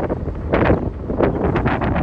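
Gusts of wind buffeting a phone's microphone in irregular loud blasts over a constant low rumble.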